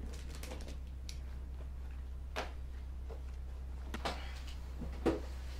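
Quiet room tone with a steady low hum, broken by three soft knocks and rustles of someone moving about on a sofa, the loudest near the end.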